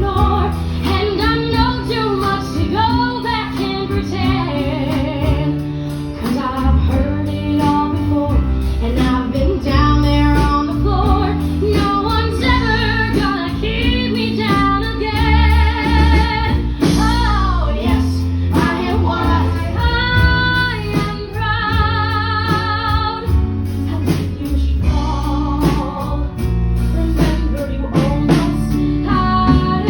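A woman singing a 1970s pop song with live band backing, with vibrato on long held notes around the middle of the stretch.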